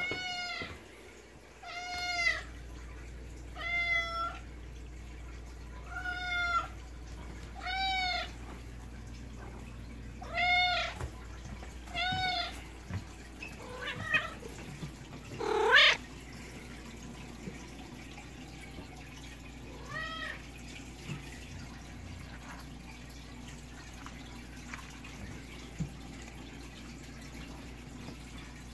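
Domestic cat meowing over and over, about one meow every two seconds, with the loudest a long rising meow about halfway through, and a last one a few seconds later. The cat is begging for food even though dry food is in its bowl.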